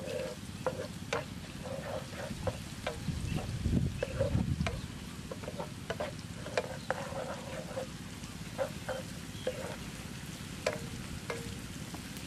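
A spatula stirring and scraping a frying pan of chilli sizzling in oil, with frequent short clicks of the spatula against the pan.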